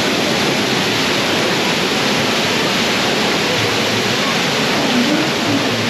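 Loud, steady rush of falling water, even and unbroken throughout.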